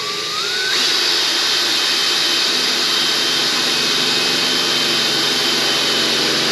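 Electric drill running and drilling a hole through the car's sheet-metal body panel for a bumper quick-release mount. The motor whine rises as it spins up in the first second, then holds steady under load.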